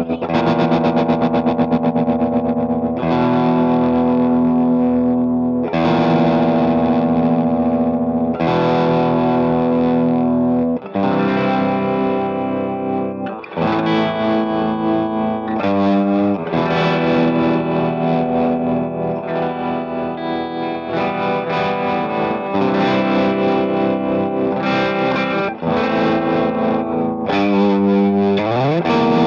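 Distorted electric guitar, a Gibson SG Custom through a Marshall YJM head, playing held chords that change every few seconds. The Greer Arbuckle Trem, a transistor tremolo pedal, makes the volume pulse quickly and evenly. A pitch slide rises near the end.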